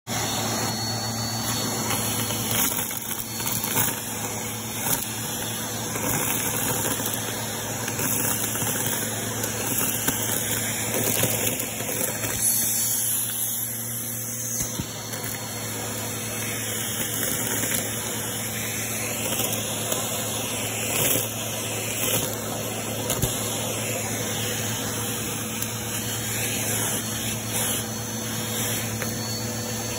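Vacuum cleaner running steadily with a crevice tool on carpet, a constant motor hum and airflow hiss, with scattered clicks and rattles as sequins and small bits are sucked up.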